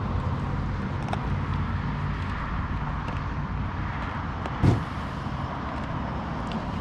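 Steady low outdoor background rumble with a faint hum, and a single thump about four and a half seconds in.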